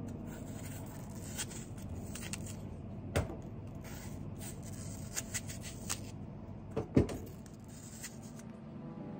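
Kitchen knife cutting apple on a wooden cutting board: a few faint clicks, a sharp knock of the blade on the board about three seconds in and a double knock about seven seconds in, over a steady low background hum.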